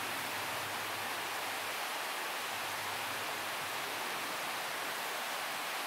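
Steady, even rush of flowing river water, fading out near the end.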